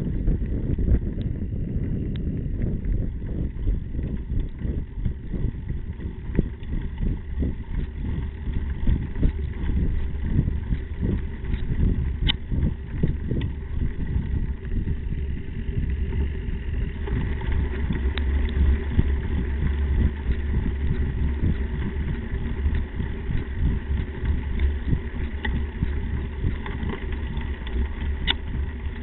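Riding noise from a frame-mounted camera on a Slingshot Ripper mountain bike rolling over a dirt track: a steady low rumble of wind buffeting and tyre noise, with constant small rattles from the bike and a few sharp clicks. The noise turns brighter a little past halfway.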